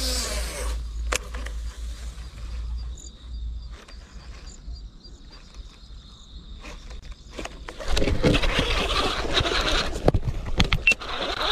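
Lure fishing with a baitcasting rod and reel. A short rush of noise comes at the start, then a steady high buzz over a low rumble. About eight seconds in, a loud, noisy commotion full of sharp clicks takes over as a fish strikes and is fought in on the rod.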